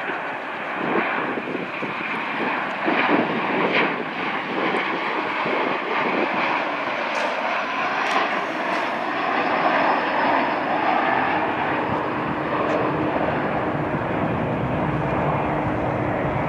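Boeing 737 jet airliner passing on its landing approach, its engine noise a steady rush that builds gradually louder.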